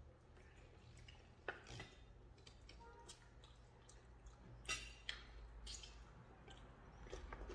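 Near silence over a low steady hum, with a few faint, brief wet clicks and smacks of eating by hand: fingers pulling apart fried chicken and lips smacking.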